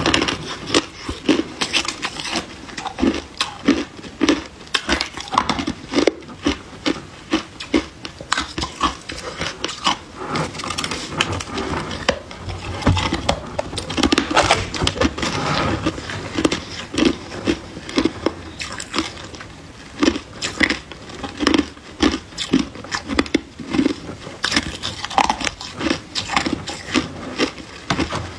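Crushed ice being bitten and chewed close to the microphone: a steady run of sharp, crackly crunches, about two or three a second.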